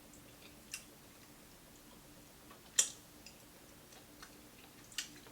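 Close-up chewing of crispy fried food: three short, sharp crunchy clicks a couple of seconds apart, the middle one loudest, over a faint steady hum.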